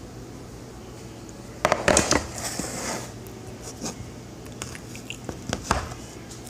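A clatter of knocks as a metal cupcake pan is set down on the counter close to the microphone, followed by a few lighter taps and clicks as the cupcakes in it are handled.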